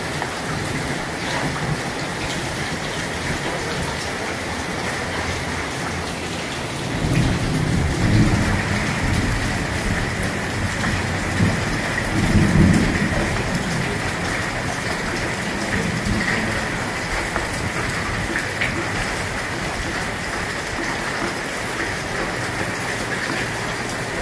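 Steady rain falling on wet paving and puddles, an even hiss, with low rumbles swelling up about seven seconds in and again about twelve seconds in.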